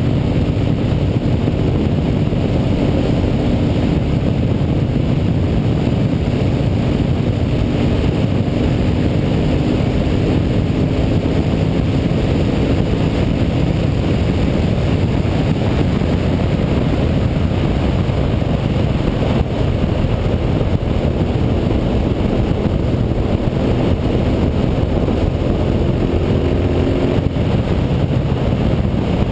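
Honda Varadero 1000's carburetted V-twin engine running at a steady road cruise, heard under a constant rush of wind and road noise. Its note shifts slightly about two-thirds of the way through.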